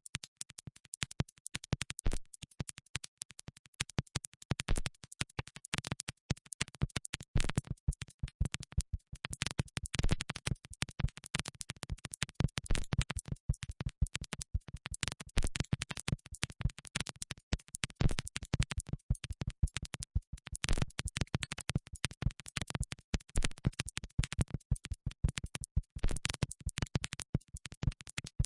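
Rapid, irregular crackling clicks, many per second, with no steady tone underneath.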